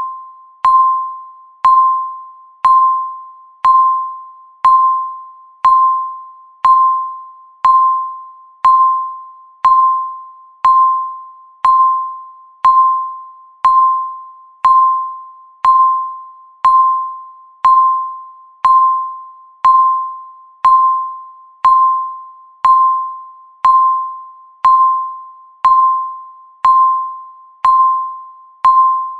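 Countdown timer's electronic beep, one short mid-pitched tone each second that starts sharply and fades away quickly, repeating evenly and marking each passing second.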